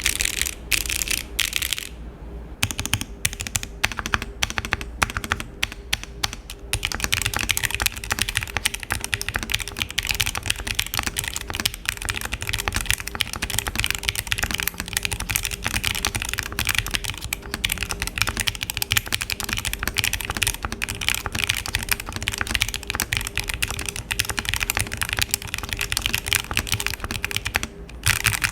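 Mechanical keyboard with Akko Matcha Green V3 Pro switches typed on in a foamless case. There are a few separate keystrokes with short pauses in the first several seconds, then steady, fast typing.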